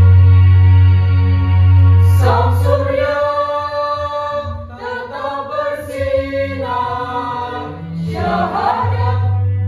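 Elementary school children's choir singing with a backing track. A held instrumental chord opens, and the voices come in about two seconds in.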